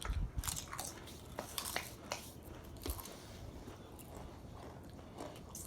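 Cheddar cheese Pringles potato crisps being bitten and chewed, with sharp crunches packed into the first three seconds that thin out into quieter chewing.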